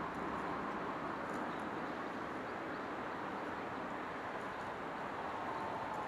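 Steady rush of river water flowing over stones, an even noise with no breaks.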